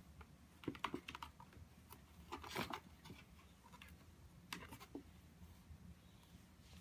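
Light clicking, tapping and scraping on a cardboard cat play box, coming in three short flurries, as a cat teaser wand is worked through its holes and a cat paws at it.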